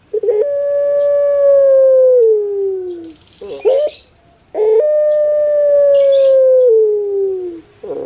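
Puter pelung (Barbary dove, Streptopelia risoria) giving its long song call: two long drawn-out coos, each held steady for over two seconds and then sliding down in pitch at the end, each opened by a short rising note.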